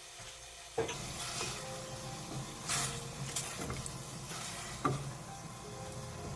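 Food goes into a hot pan just under a second in and starts sizzling steadily. A utensil knocks and scrapes against the pan a few times as it is stirred.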